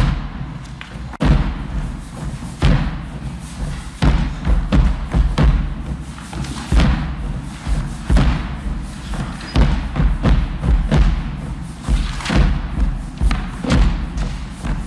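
Bombo legüero, the Argentine folk bass drum, beaten with sticks in a fast, driving rhythm of deep thumps and sharp strokes.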